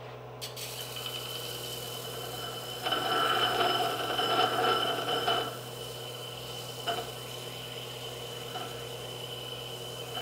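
Electric disc sander running with a steady whine while a knife blade is pressed against its freshly changed sandpaper disc. The sanding gets loudest from about three seconds in to past the middle, then eases back to the running whine, with a couple of light clicks.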